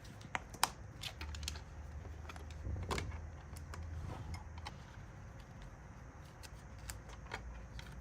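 Irregular light clicks and taps of small plastic items being handled and packed, the loudest about three seconds in, over a faint low hum.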